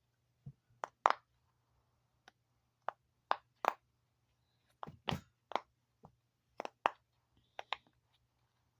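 Silicone pop-it fidget toy pressed bubble by bubble on its good side, giving about fifteen short pops at an irregular pace with brief pauses.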